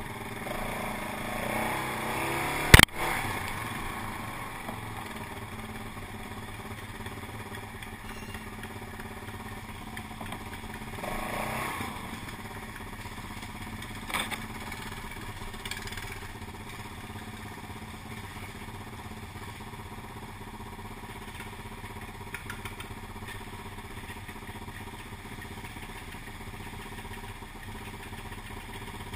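Quad bike (ATV) engines running at low speed, rising briefly a couple of times as the riders move off. A sharp knock about three seconds in is the loudest sound, with a smaller one midway.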